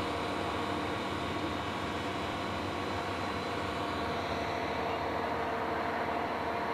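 A heavy engine running steadily, an even hum with several steady tones and no change in speed.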